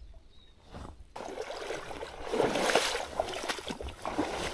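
Water splashing and sloshing in a shallow river. It starts abruptly about a second in and is made of many small irregular splashes.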